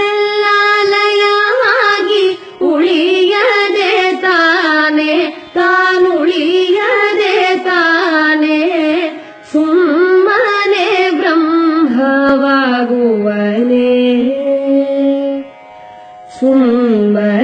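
A voice singing a Kannada devotional bhajan in long, ornamented phrases with short breaks between them.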